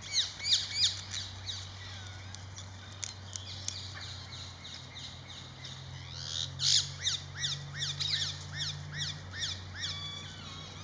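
Parakeets calling in quick runs of short, sharp, falling squawks, about two or three a second: one burst at the start and a longer run from about six seconds in. A few sharp clicks sound around three seconds.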